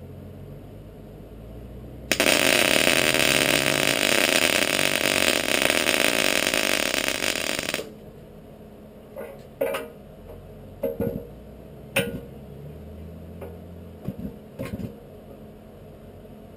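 Electric arc welding a tooth shank onto an excavator bucket's cutting edge: a loud, even frying crackle that starts suddenly about two seconds in and stops about six seconds later. Several short sharp knocks follow.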